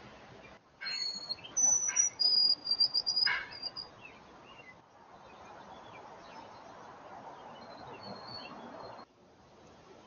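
A songbird singing a phrase of clear, high, held whistles about a second in, lasting roughly three seconds, followed later by a few faint short chirps.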